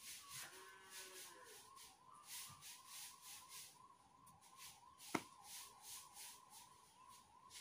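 Near silence with the faint, thin wavering whine of mosquitoes, and one sharp click about five seconds in.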